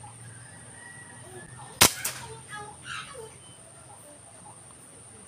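A single sharp scoped-rifle shot at a waterhen, about two seconds in, with a second smaller crack a fraction of a second after it, followed by a few short chirpy sounds.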